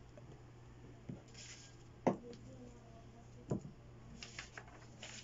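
Faint handling noises from a hand and marker moving over a sheet of paper: three soft knocks, the loudest about two seconds in, and a couple of brief rustles, over a steady low hum.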